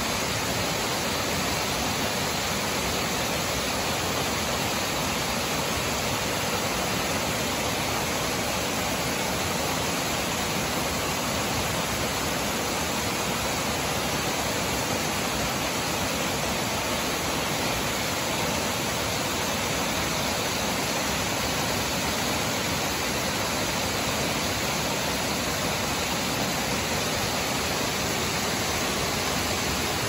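Water pouring over small stepped stone weirs into a shallow pool: a constant, even rushing with no change in level.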